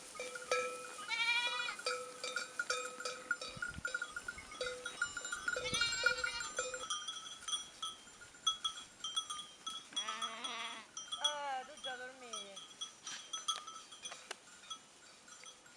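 A grazing flock of sheep bleating about four times: a high call about a second in, another around the middle, then two lower, wavering bleats near the end, the last falling in pitch. Bells on the flock clink over much of the first half.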